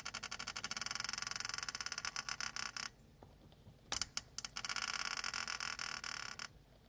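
A whistle sounding with a rapid trill, in two long blasts with a short gap holding a few clicks.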